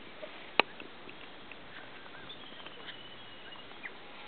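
Open-air mountainside ambience: a steady faint hiss with a few faint, short, high chirps scattered through it, and one sharp click about half a second in.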